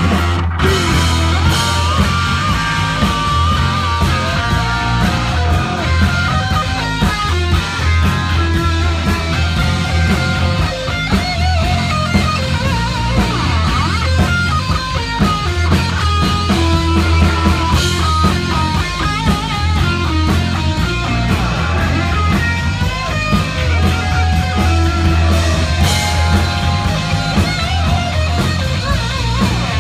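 Heavy metal band playing live, loud: distorted electric guitar playing a lead line with bent notes over bass and drums with crashing cymbals.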